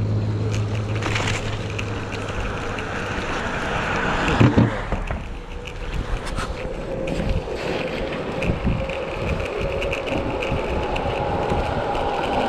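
Knobby pneumatic tyres of a dog-pulled board rolling over pavement in a steady rumble, with a single knock about four and a half seconds in.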